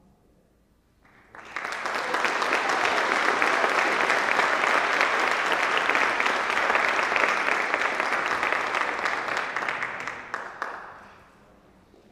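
Audience applauding: the clapping starts about a second in, holds steady, and dies away near the end with a few last single claps.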